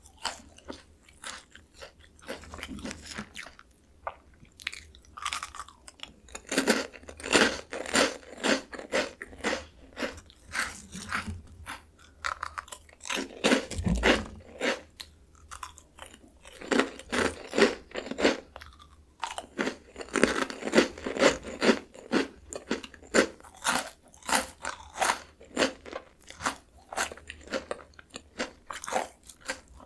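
Close-miked crunching and chewing of crisp Jagalchi seafood-flavoured snack crackers, in runs of quick crunches separated by short quieter pauses between bites.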